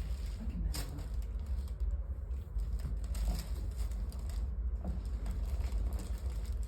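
Low steady hum with a few faint clicks and soft rustling.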